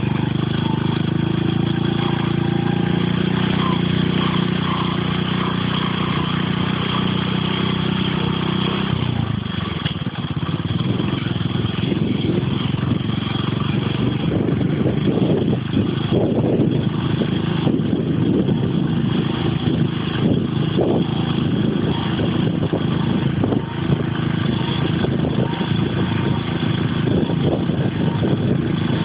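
A vehicle's engine running at a steady pitch while travelling along a road. About nine seconds in, a rushing, buffeting wind noise on the microphone takes over and covers the engine.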